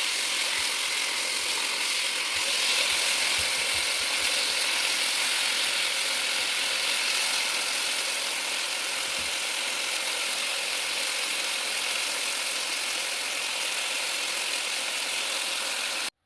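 Dense, steady chorus of night insects, a loud high-pitched trilling that cuts off abruptly near the end.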